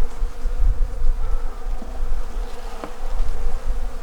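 Honeybees buzzing in a steady hum around an opened hive, over a low rumble, with a short click about three seconds in.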